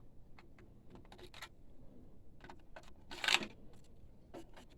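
Light, irregular clicks and taps of hands and tools handling printer parts around the print head carriage, with one louder short scrape about three seconds in.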